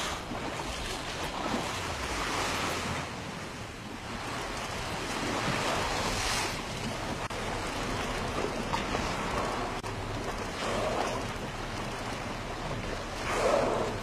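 Wind rushing on the microphone over choppy open water, with waves lapping; a few louder gusts of rushing noise swell and fade, the strongest near the end.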